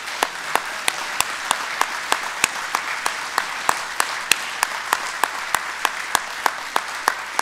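Conference audience applauding, with one clapper's sharp, evenly spaced claps standing out about three times a second.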